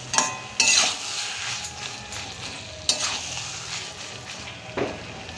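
A spoon stirring a kadai of chickpea and potato curry as it sizzles and bubbles. It knocks against the pan four times with short metallic rings, the loudest near the start.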